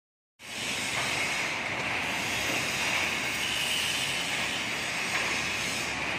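RM 1400 reversible concrete drum mixer running: a steady mechanical hiss and rumble from its power unit, starting suddenly about half a second in.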